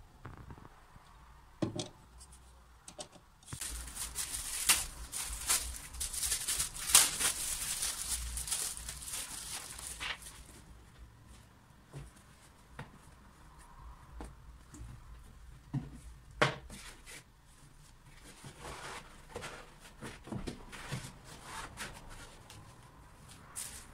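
Hands handling things on a shelf: a long stretch of rustling and crinkling from about three and a half to ten seconds in, then scattered knocks and taps as objects are set down and moved, with a sharper knock around sixteen seconds.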